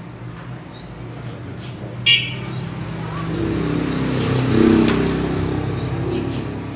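A motor vehicle's engine passing by: a steady hum that grows louder, peaks about four and a half seconds in, then fades away. A short sharp high chirp sounds about two seconds in, and faint bird chirps come and go.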